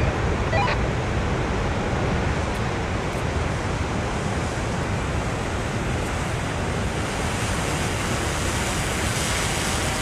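Heavy ocean surf and churning white water, a steady rushing noise, with wind on the microphone.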